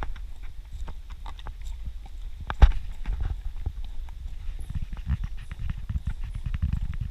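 A runner's footfalls on a dirt forest trail, a steady run of quick knocks with one heavier thud about two and a half seconds in, over a low rumble.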